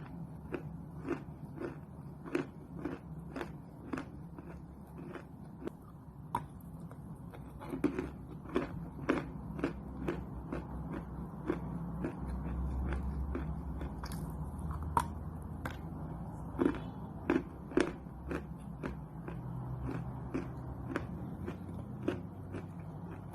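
Chalk being bitten and chewed close to the microphone: a steady run of short, sharp crunches, about two a second.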